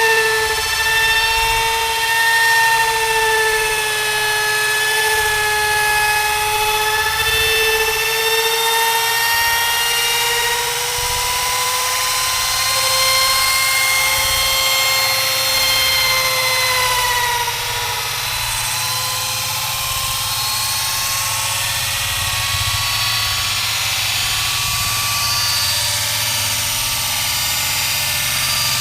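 Electric woodworking machine running with a steady high whine as it cuts a groove into a solid wood door; the pitch sags and recovers a little at times under the load of the cut.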